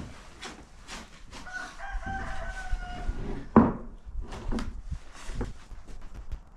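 A rooster crows once for about a second and a half. Around it come scattered knocks, with one loud thump about three and a half seconds in.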